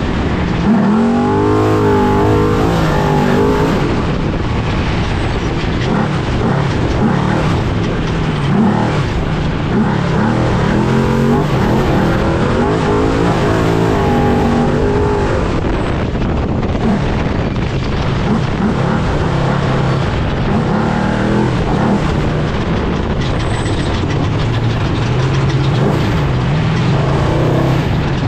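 Race trophy truck heard onboard at racing speed: a loud, constant engine note with a steady wash of chassis and ground noise. The engine's pitch rises and falls over and over as the throttle is worked.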